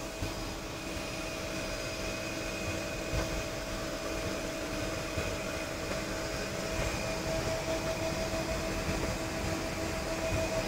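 Steady hum and whine of an aircraft's running machinery heard from inside the cockpit, with a few constant tones over an even rushing noise; the middle tone grows stronger about two thirds of the way through.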